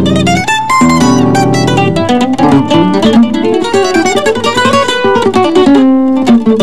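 Bandolim (Brazilian mandolin) playing a fast choro melody of quick picked notes, with acoustic guitar accompaniment.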